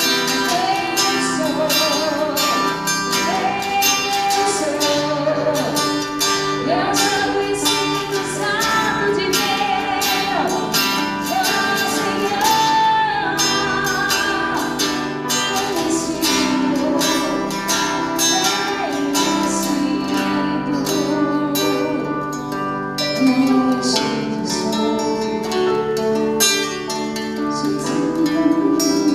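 A church band playing a worship song, with singing over guitar and drums.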